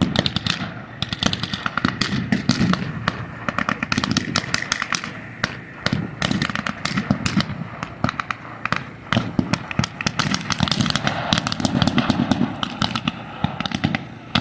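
Many rifles and machine guns firing blanks: a rapid, irregular crackle of shots that never lets up, some in quick bursts.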